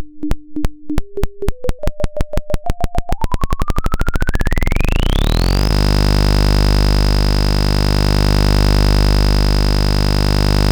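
Synthesized oscilloscope-music signal (sine, cosine and sawtooth waveforms drawing a mushroom in X-Y mode): a series of clicks that speeds up while a tone steps upward in pitch, until about halfway through they merge into a steady buzz with a high whine on top.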